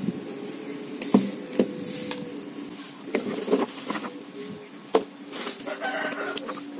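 Irregular knocks and clicks of blender-motor parts (the rewound armature, the stator and a metal end bracket) being handled and set down on a wooden workbench, about five in all. Under them runs a steady low hum.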